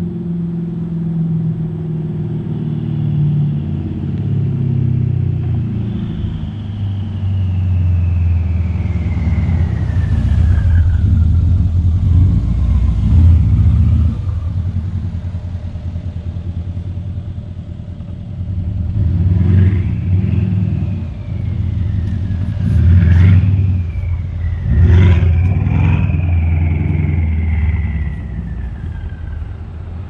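Mercedes E63 AMG's twin-turbo V8, breathing through aftermarket downpipes, a custom X-pipe and exhaust cutouts, running and pulling hard several times, its deep exhaust note swelling and easing. A few sharp cracks come in the second half.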